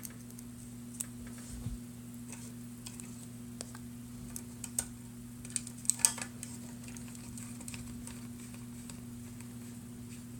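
Light, scattered clicks and ticks of small screws and a screwdriver being worked into the plastic housing of a Logitech M570 trackball, with a short cluster of sharper clicks about six seconds in. A steady low hum sits underneath.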